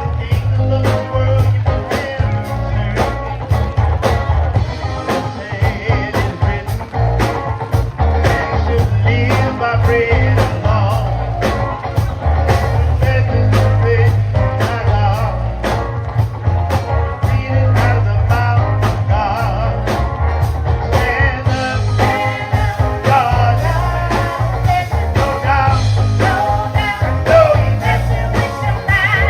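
Live gospel band playing an up-tempo song: drums keeping a steady beat of about two hits a second over heavy bass, with guitar and a wavering melody on top.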